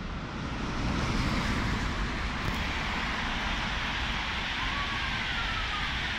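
NordWestBahn Regio-S-Bahn electric multiple unit running through the station: a steady rush of wheels and running noise that swells in the first second. A faint whine glides downward in pitch in the second half.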